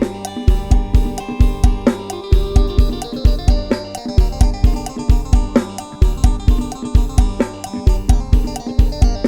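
Programmed live-style drum kit and sampled bass playing the Isan 'lai hae' procession groove: kick and bass thumping on a fast, steady beat under snare, cymbal and hi-hat strokes, with a sustained melodic part over it.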